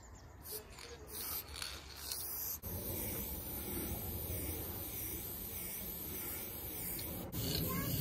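Aerosol spray paint can hissing as paint is sprayed onto a wall to fill in graffiti letters: a few short bursts at first, then a steady spray from about two and a half seconds in.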